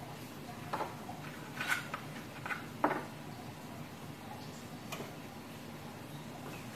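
Kitchen knife and utensils knocking on a cutting board: about five scattered light knocks, the loudest about three seconds in, with no steady chopping rhythm.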